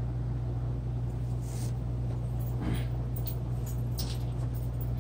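Steady low hum with a few short, faint scratching sounds scattered through it.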